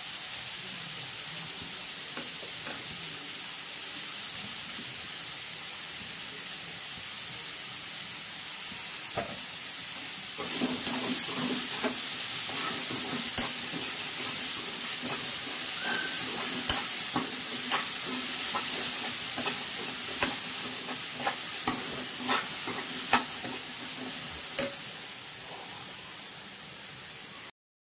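Chickpeas and chopped vegetables sizzling in a kadai as a steel spoon stirs and tosses them. The spoon clicks and scrapes sharply against the pan again and again. The frying gets louder about ten seconds in, and the sound cuts off abruptly at the end.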